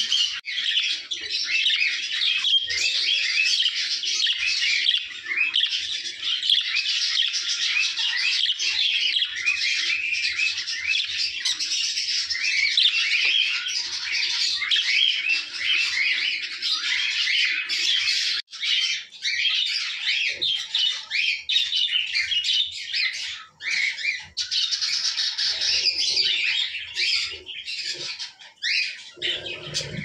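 Budgerigars chattering: a dense, continuous run of warbles, chirps and squawks, with a few short breaks in the second half.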